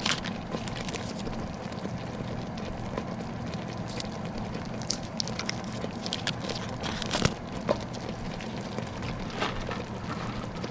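Thick pot-pie filling boiling in a pot on the stove, with irregular pops and crackles of bursting bubbles over a steady low hum.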